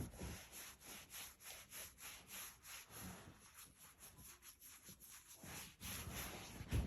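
Cat coughing: a run of raspy, rhythmic hacks, about three a second.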